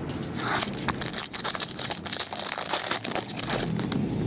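Foil trading-card pack wrapper torn open and crinkled by hand: a busy run of crackles and rips that settles down near the end.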